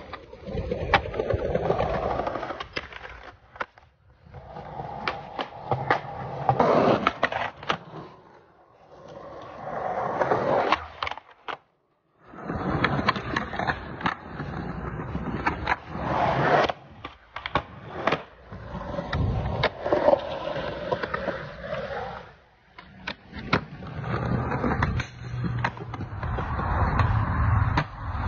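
Skateboard wheels rolling on concrete, broken by many sharp wooden clacks of boards popping and landing on ledges and pavement, in several separate runs with sudden breaks between them.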